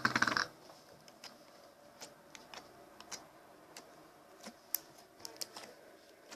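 Slime being pulled and squeezed in the hands, giving off scattered small sharp clicks and pops, with a short scraping rustle right at the start as it comes away from its container.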